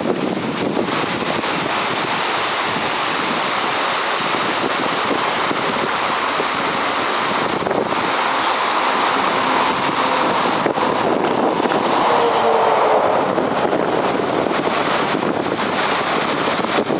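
The Tiber river in flood, its muddy water rushing steadily in a continuous loud noise.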